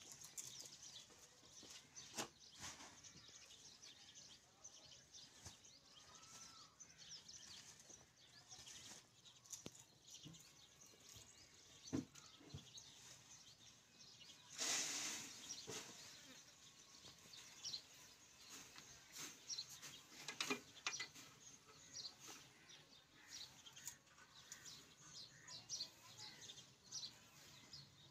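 Near silence with faint bird chirps and scattered small clicks, and a brief rush of noise lasting about a second and a half around the middle; the diesel engine is not running.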